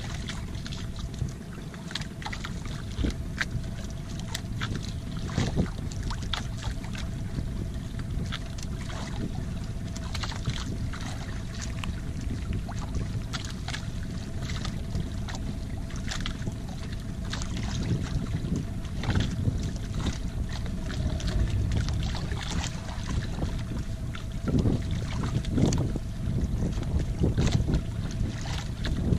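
Small wooden outrigger fishing boat (jukung) on the sea: a steady hum over a low rumble, with frequent short splashes and knocks against the hull.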